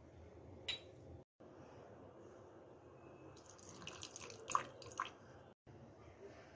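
Water poured from a steel bowl into a steel mixer-grinder jar, with a few sharp clinks of steel on steel about four and five seconds in.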